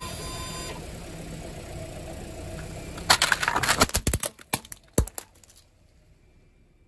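Car tire rolling over brittle objects and crushing them: a low engine rumble, then a fast run of loud cracks and crunches that thins out to a few single snaps.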